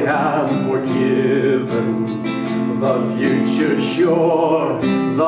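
A man singing a worship hymn, accompanying himself on acoustic guitar.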